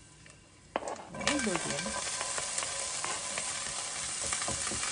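Chopped onion tipped into hot oil in a stainless steel pan. After a knock about three-quarters of a second in, a loud sizzle starts suddenly and runs on steadily while a wooden spoon stirs the onion.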